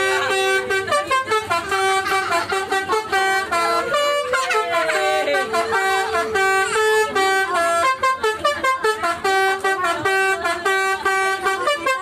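Bus 'telolet' horn, a multi-tone musical air horn, playing a rapid stuttering tune of short pitched toots, several a second, in a repeating pattern.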